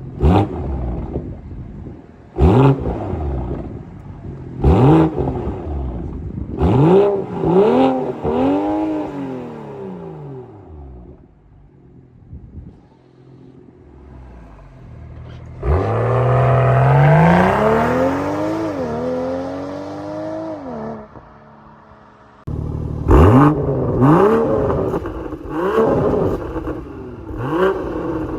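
BMW B58 turbocharged straight-six with an aftermarket exhaust, revved hard in a string of quick blips. Midway there is a longer acceleration pull whose pitch climbs, dips once at a gear change, then climbs again, followed by more quick revs.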